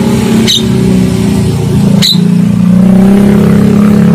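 A motorcycle engine running close by, a steady low hum that swells and climbs a little in pitch towards the end. Two short sharp clicks cut through it, about half a second and two seconds in.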